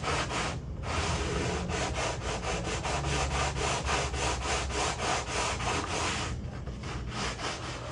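Sandpaper on a hand-held straight board rubbing back and forth along the edge of a thin walnut veneer, in quick even strokes about four a second. This is the veneer edge being trued so the splice seam closes tight. The strokes stop briefly under a second in and go softer around six to seven seconds in.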